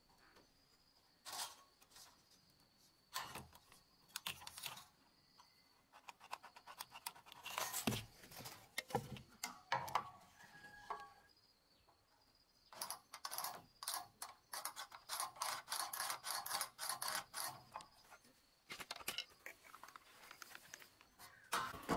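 Scattered clicks, taps and scrapes of a tape measure and a flat steel bar being handled on a galvanized steel box-section beam. A run of quick scratching strokes in the second half comes from marking a line along the steel.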